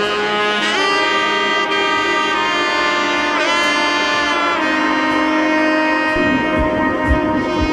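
Background music: a lead melody of long held, sliding notes, with low drum beats coming in near the end.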